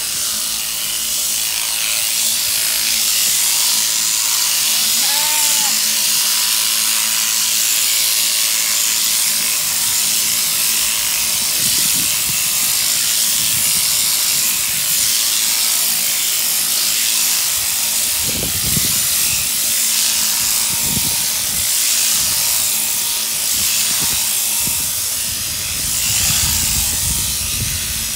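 Mechanical sheep-shearing handpiece running steadily, a high buzzing hiss as its comb and cutter clip through a sheep's fleece. A few low thumps come in over the second half.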